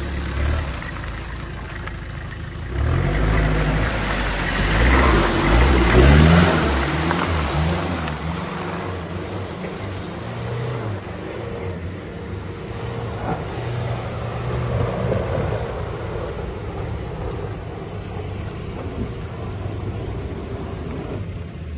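Off-road 4x4 engine revving up and down hard for several seconds about three seconds in, then running more steadily under lighter throttle.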